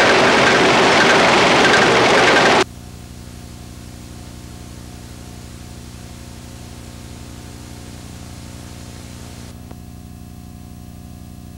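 Steady rush of wind-tunnel airflow around a model aircraft, cutting off abruptly about two and a half seconds in. What remains is a faint hiss with a steady low hum.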